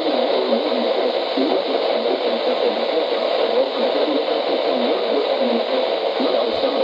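Radio static: a steady, even hiss from a radio receiver with no program audio, with a single brief click near the end.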